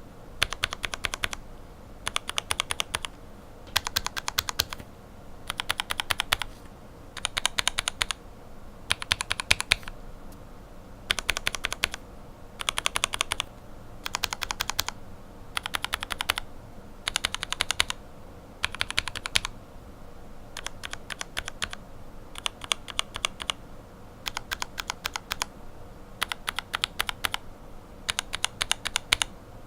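Lubed linear mechanical keyboard switches, Cherry retooled bottom housings with Revo White stems and springs lubed with Tribosys 3204, being typed in quick runs. Each run is a burst of rapid keystrokes about a second long, repeating roughly every two seconds.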